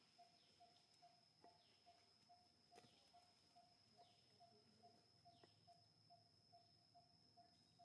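Near silence: faint outdoor ambience of insects and birds. A steady high whine runs under a soft note repeating about three times a second, with a faint tick about three seconds in.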